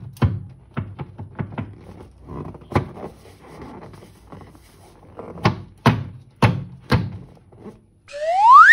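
A series of sharp taps and clicks in irregular clusters. Near the end comes a loud whistle-like tone that rises steadily in pitch.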